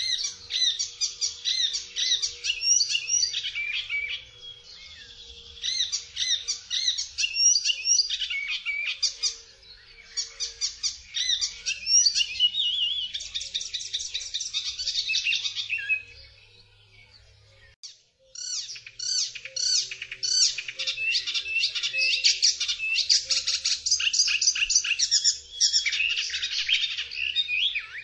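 Icterine warbler singing: long runs of rapid, varied high notes, broken by short pauses and one longer pause about two-thirds of the way through.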